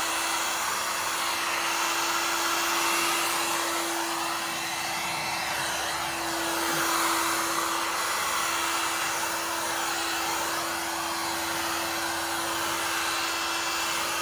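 Handheld Black & Decker heat gun running steadily, a steady motor hum over the rush of hot air, blown onto freshly sprayed caliper paint to dry it. It stops at the very end.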